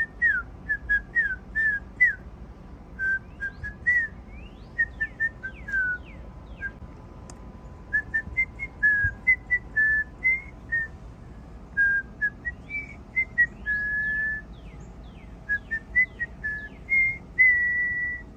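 A person whistling at a cat: a run of short chirpy whistled notes, many sliding down in pitch, with a longer held note about two-thirds of the way through and another at the end.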